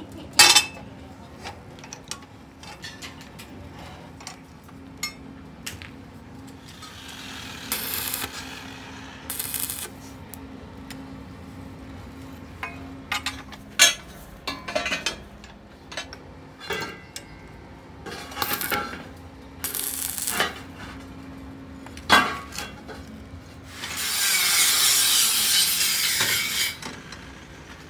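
Rolled steel tractor rim bands clanking and scraping as they are handled and set onto a steel fixture. Sharp metallic knocks come every few seconds, with short rasping scrapes and a louder rasp lasting about three seconds near the end, over a steady low hum.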